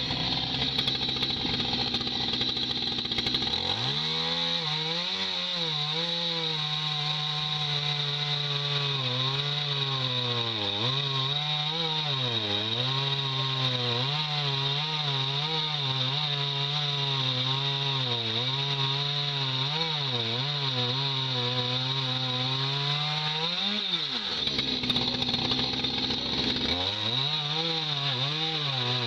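Two-stroke chainsaw cutting into a tree stump: it starts at idle, is throttled up about four seconds in, and its pitch sags and recovers again and again as the chain bites into the wood. It drops back to idle about 24 seconds in and is revved up again a few seconds later.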